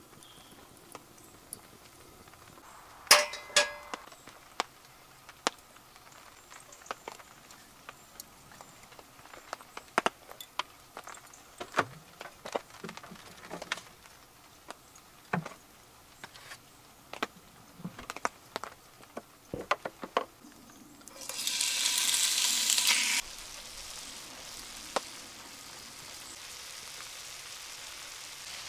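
Scattered clicks and knocks of camp gear being handled, then, about 21 seconds in, a loud burst of sizzling as chicken pieces go into a hot wrought-iron skillet over a wood fire, settling into a steady frying sizzle.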